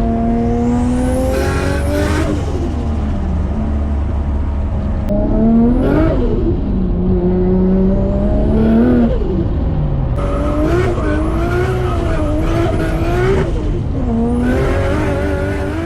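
Turbocharged Nissan RB25DET straight-six in an R33 Skyline being driven hard. The revs climb and then fall away several times, about every three to four seconds.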